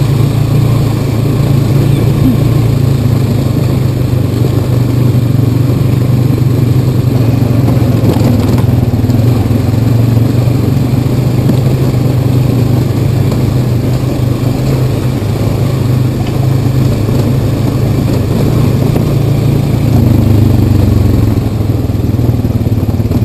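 Single-cylinder utility ATV engine running steadily as the quad rides along a gravel trail, picked up close by the camera mounted on the machine.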